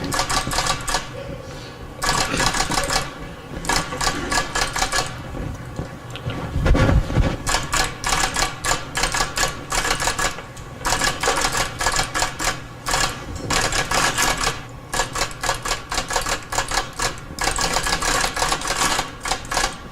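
Manual typewriter being typed on fast, its keys clacking in rapid runs broken by short pauses. There is a low thump about seven seconds in.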